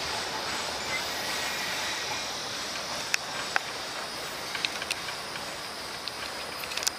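A passing freight train fading into the distance: a steady hiss of rail noise that slowly dies away, with a few short sharp clicks from about halfway through.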